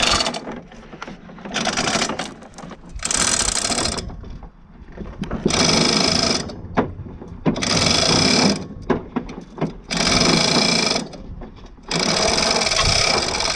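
Metal ratcheting mechanism worked by hand in repeated bursts, about seven in all, each about a second long with short pauses between, as an engine is worked free of its transmission.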